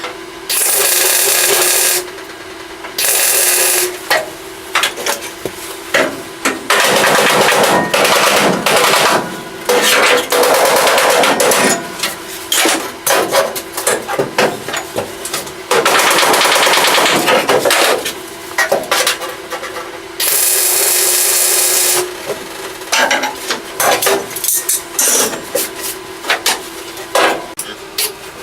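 Welder laying a series of crackling tack and stitch welds on sheet-metal body panels, in bursts of one to two seconds, with short sharp knocks between them over a steady hum.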